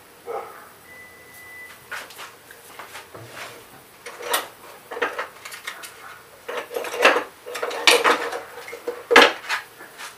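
Small metal and plastic carburetor parts and tools clinking and knocking against a metal parts tray as they are handled. The clicks come irregularly and get busier and louder in the second half.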